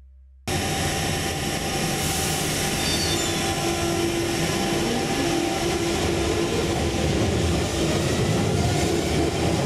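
London Underground tube train pulling out of the platform and running off into the tunnel: a loud, steady rumble of wheels on rail with a steady whine in it. The sound cuts in suddenly about half a second in.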